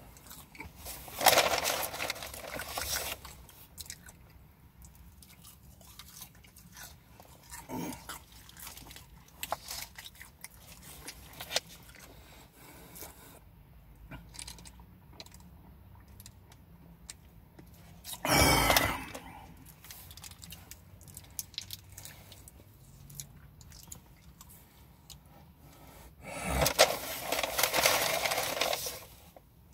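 Close-up chewing and eating sounds: a person biting and chewing fast food, with small wet mouth clicks. Three loud noisy bursts break in: one near the start, one brief one about two-thirds in, and a longer one near the end.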